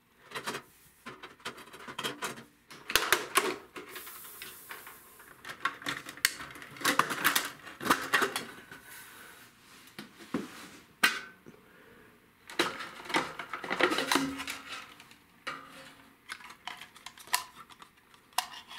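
Irregular clicks, knocks and rattles of a fluorescent shop-light fixture being taken apart by hand: its long cover plate and plastic end housing are handled and knock against each other.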